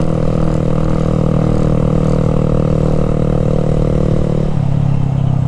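Honda Grom's single-cylinder engine running loud through an aftermarket exhaust with its baffle out, straining under load on an uphill climb. The engine note holds steady, then drops in pitch about four and a half seconds in.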